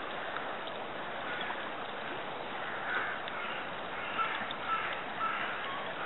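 Steady rush of flowing river water, with a bird giving about four short calls, half a second apart, in the second half.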